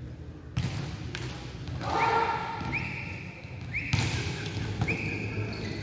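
A volleyball being hit during spiking practice: sharp smacks that echo around a large sports hall, with several short high squeals between them.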